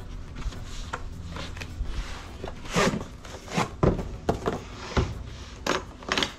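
A hard plastic drill carry case is slid out of its cardboard box and set down on a wooden board: rubbing and scraping, with several knocks and clicks, the last ones near the end as its latches are worked.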